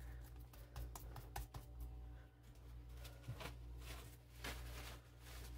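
Faint, irregular crinkling and rustling of plastic cling film as hands press and wrap a ground-chicken patty, in two short spells. A steady low hum runs underneath.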